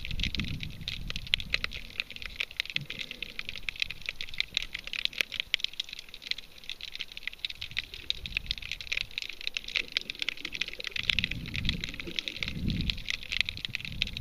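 Underwater crackle of a Hawaiian reef: a dense, continuous patter of tiny sharp clicks from snapping shrimp. Low rushes of water moving past the camera come at the start and twice near the end.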